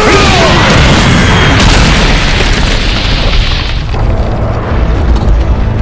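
Anime fight sound effects: a sudden heavy impact boom with a loud rushing blast, a falling yell in the first second, the blast dying down after about four seconds to a low rumble.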